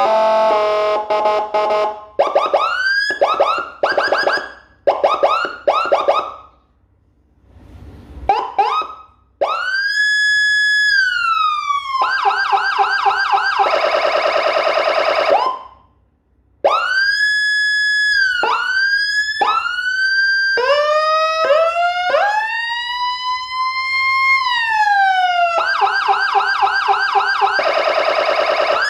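Whelen HHS electronic vehicle siren cycling through its tones. It plays short rising whoops, a long tone that rises, holds and then falls, and fast pulsing warbles, with brief gaps between patterns.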